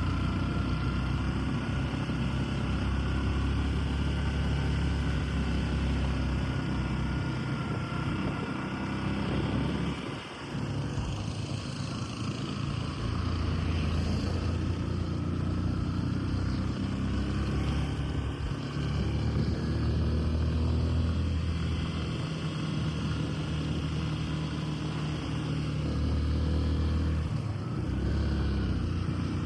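A vehicle on the move: engine hum and road noise, steady apart from a brief dip about ten seconds in.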